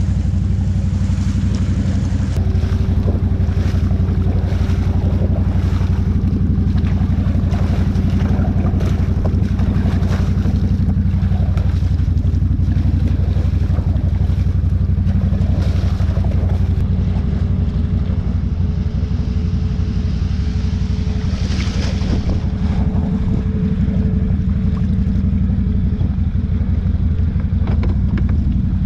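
Can-Am ATV engine running steadily as the quad rides through shallow muddy water, with a steady low hum and a faint whine above it throughout.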